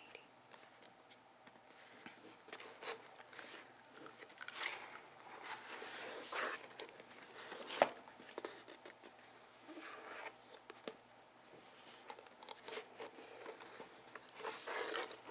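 Long fingernails scratching and tapping on a cardboard box as it is handled and turned, with rubbing and rustling between. One sharp tap stands out about eight seconds in.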